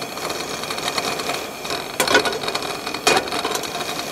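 Primus Firehole 100 propane camp stove burner running with a steady hiss under a frying pan of oil heated to smoking, with two sharp clicks about two and three seconds in.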